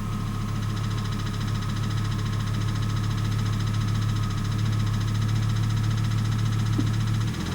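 1998 Volvo S70 T5's turbocharged five-cylinder engine idling steadily with a fast, even ticking, which the owner found to be rod knock.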